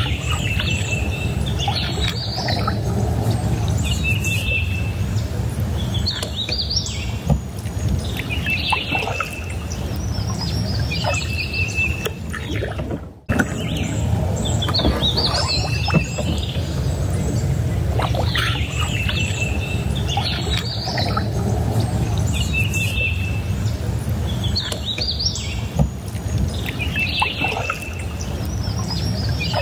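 Several birds calling again and again: short, rapid trills and quick rising-and-falling whistled phrases, over a steady low rumble. The sound drops out suddenly for a moment about halfway through.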